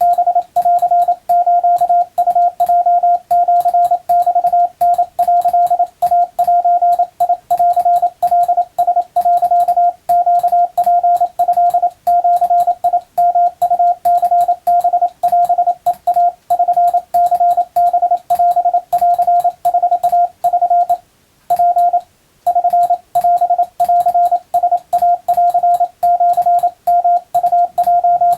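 Morse code (CW) tone of about 700 Hz, keyed rapidly into dots and dashes with short gaps between characters. It stops briefly twice about three quarters of the way through.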